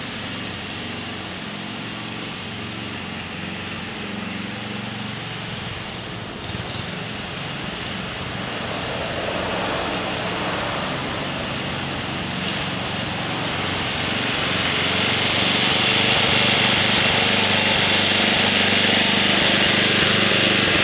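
LT11/36 garden tractor's engine running steadily, getting louder over the last several seconds as the tractor drives closer. A car passes along the street about ten seconds in.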